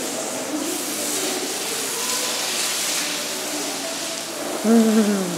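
Garden hose spraying water onto an African elephant's wet hide, a steady hiss. Near the end comes a short, loud pitched sound that falls in pitch.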